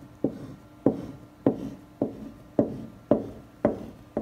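Wooden pencil tapping on the painting surface in a steady rhythm, about eight sharp taps, a little under two a second, as its eraser end presses a row of marks into wet acrylic paint.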